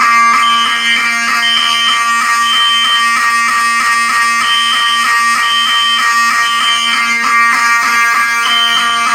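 Fire alarm notification appliances sounding together in alarm: a steady buzzing horn under a high tone that pulses in the three-beat temporal evacuation pattern, three short tones then a pause, repeating.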